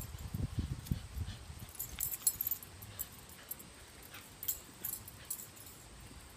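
Dog growling while tugging on a springpole rope toy, mostly in the first second and a half, then quieter. Its metal chain collar jingles lightly as it pulls and shakes.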